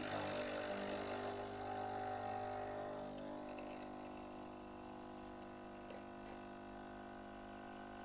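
Cafeler CFR-10B espresso machine's pump humming as it pushes hot water through the ground coffee to brew a 60 ml shot. It starts abruptly, is louder with a hiss for the first three seconds, then settles to a steadier, quieter buzz.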